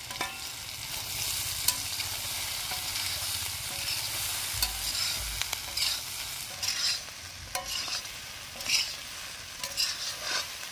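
Soya chunks frying in a pan with sizzling oil while being stirred, with irregular scraping strokes of the stirring utensil about once a second over a steady sizzle.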